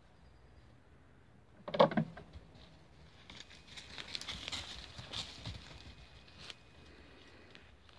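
Ouessant sheep's hooves knocking on a wooden table top, a quick cluster of knocks about two seconds in, followed by a few seconds of scuffling and rustling with scattered ticks as they scamper over dry, leaf-littered ground.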